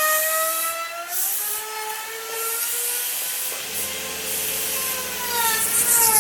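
Electric power tool working wood, its motor pitch slowly sagging and rising as the cut loads it, with the hiss of the cutting over it. A lower steady hum joins a little over halfway in.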